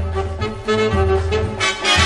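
Upbeat instrumental background music with a repeating bass figure, rising to a brighter, noisier surge near the end.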